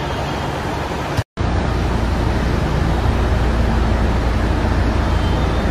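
Loud steady rumbling noise, like road traffic or a running machine, that drops out for a moment a little over a second in and then carries on unchanged.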